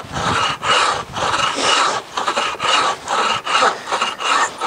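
Folding bow saw cutting through a wooden branch: steady back-and-forth rasping strokes, about three a second.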